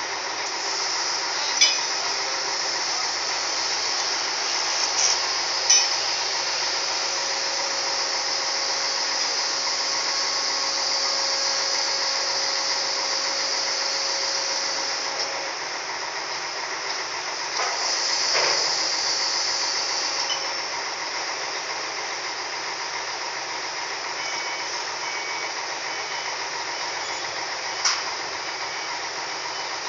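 Steady noise of cargo-handling machinery at a ship's hold, with several sharp metal clanks, the loudest about two seconds in and another near the end.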